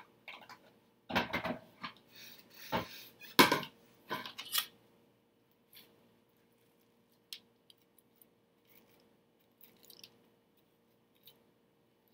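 Dishes clattering as a glass bowl is set down on the counter, several loud knocks in the first four or five seconds. After that, only a few faint scattered clicks as a kitchen knife cuts cantaloupe flesh from the rind on a cutting board.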